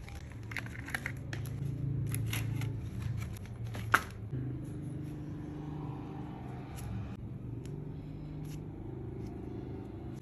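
Plastic doll stand being handled and fitted together: light clicks and rustling of hard plastic, with one sharp snap about four seconds in.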